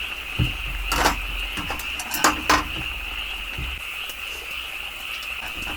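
A steady, high-pitched chorus of insects, crickets or similar, runs throughout. It is broken by a few sharp clinks of tableware about a second in and again around two and a half seconds, as food is served from the pot.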